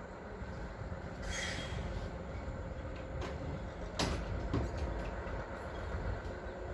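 Drill rig truck running with a steady low rumble. There is a brief hiss about a second in and a sharp knock about four seconds in.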